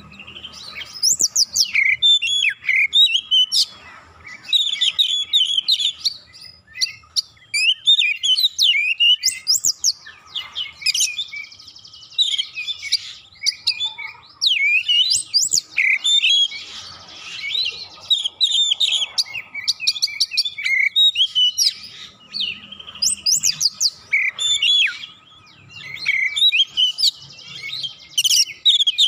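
Oriental magpie-robin (kacer) singing: a loud, varied song of rapid whistles and chattering phrases, delivered in dense runs with brief pauses.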